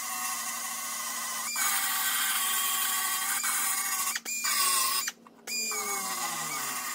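Small pneumatic belt sander whining at high speed as it grinds rust off the rusted-through rear wheel-arch lip of a Nissan Skyline GT-R quarter panel. It grows louder under load about a second and a half in, then cuts out briefly twice past the middle before starting up again.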